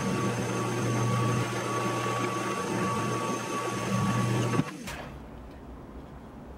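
Drill press running with a steady hum and a thin constant whine as a brad-point bit drills a barrel-hinge hole into the wooden box. It stops abruptly about four and a half seconds in.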